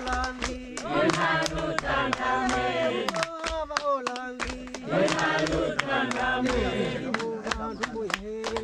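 A group of villagers singing a welcome song together, with hand clapping.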